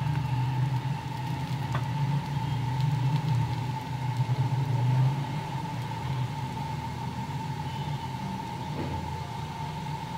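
Steady low mechanical hum with a thin steady whine above it, a little louder in the first half. Beneath it, faint sizzling from a methi paratha frying in oil on an iron tawa.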